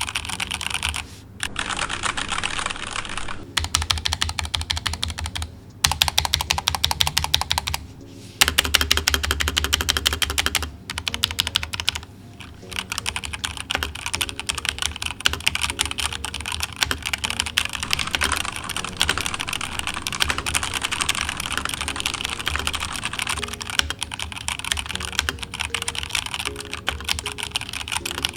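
Typing on a Keychron K2 mechanical keyboard fitted with lubed Gateron Pro Milky Yellow linear switches, tape-modded, with tuned plate-mounted stabilizers: fast runs of keystrokes broken by brief pauses.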